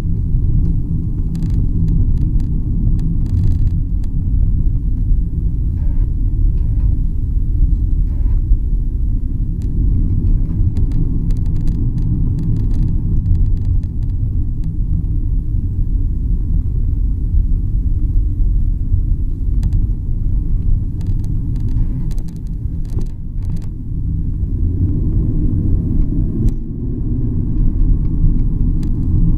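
Low road and tyre rumble inside the trunk of a 2018 BMW 750i M Sport (G11) on the move, with short creaking clicks coming and going throughout. The creaks come from the rear suspension, where the owner reports an abnormal knocking.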